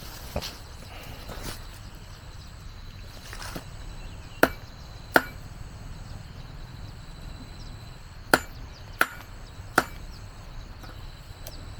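Sharp chops of a hand blade cutting through grass and plant stems: several separate strikes about a second apart, in two groups a few seconds apart, with fainter cuts in between.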